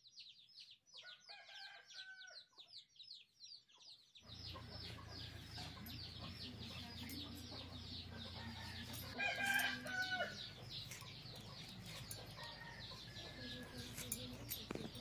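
Domestic chickens clucking, with a rooster crowing about nine seconds in, over a fast, steady run of high chirps from small birds.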